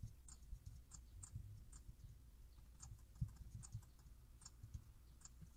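Faint, irregular clicks of a computer keyboard and mouse as keyboard shortcuts are pressed, a dozen or so taps spread unevenly.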